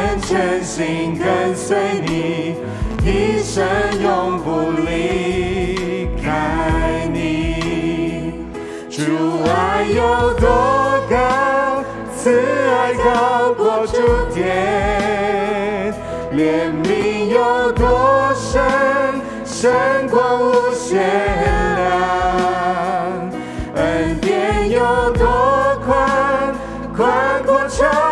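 A Christian worship song sung by a worship team of several voices over instrumental accompaniment.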